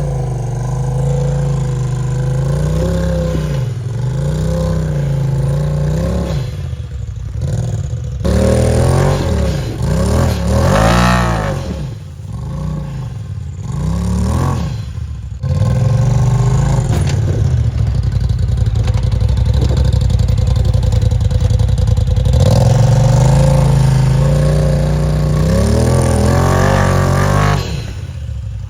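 Side-by-side UTV engine revving in repeated rising-and-falling surges about a third of the way in, then held steadily at high revs until it eases off near the end, with some rattling clatter.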